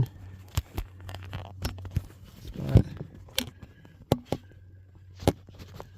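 Handling noise as a camera is set in position against a car's interior trim: scattered sharp clicks and knocks at irregular intervals, the loudest nearly three seconds in.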